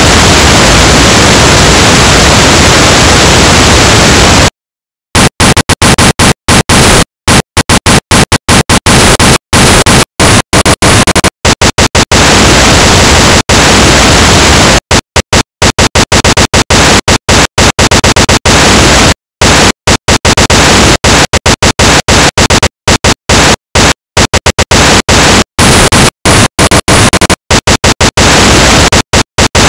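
Loud electronic white noise, switched abruptly on and off. One unbroken burst of about four and a half seconds is followed by a brief cut to dead silence, then by irregular bursts of varying length with hard cuts to silence between them, getting choppier as it goes.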